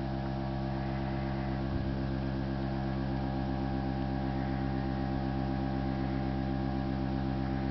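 Air compressor running with a steady hum, inflating the hitch-support air bag to carry the trailer's tongue weight.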